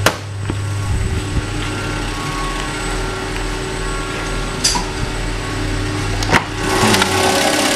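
A door latch clicking and the door knocking as it is opened, over a steady hum. From about seven seconds in, the steady running noise of the diesel injection pump test bench comes through louder as the door opens onto it.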